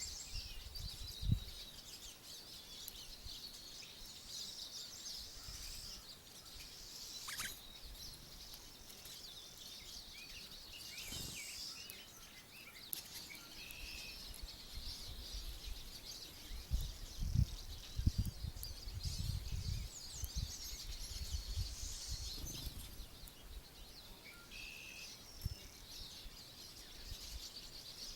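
Small songbirds chirping and twittering, many short high calls overlapping. There are a few low thumps and rumbles partway through.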